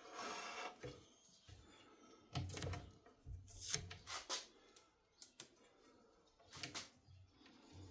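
Scattered light clicks and small knocks from a utility knife and a window sash channel being handled against a loose pane of glass. They come in a quick cluster a few seconds in and again near the end.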